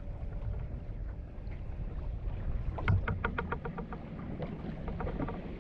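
Low rumble of wind and water around a small boat, then a thump about three seconds in followed by a rapid run of even clicks, about ten a second, for a second or so: a fishing reel's ratchet clicking as line is wound or pulled.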